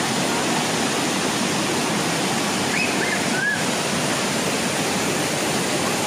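Waterfall: a steady rush of water cascading and splashing over rocks.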